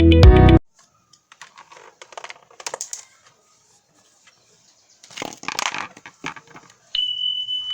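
Intro music cuts off in the first second, followed by scattered clicks, taps and rattles of small hard parts being handled, in two clusters. A steady high tone starts near the end.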